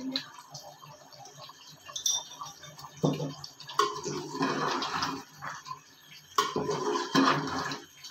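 A slotted metal spoon stirring chicken pieces through thick, wet masala in an aluminium pot, making wet squelching and scraping sounds in bursts. The loudest stretches come about three to five seconds in and again around seven seconds in.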